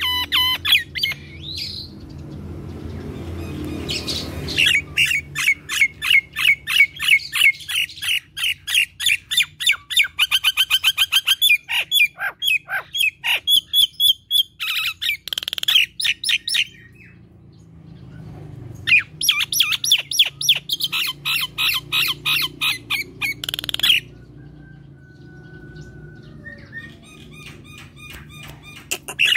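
Common myna (jalak nias) singing hard, a loud chattering stream of rapid, sharp squawking and whistled notes in long runs, with short pauses between them.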